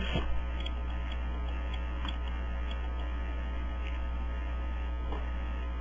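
Steady low electrical mains hum, with a few faint clicks scattered through it.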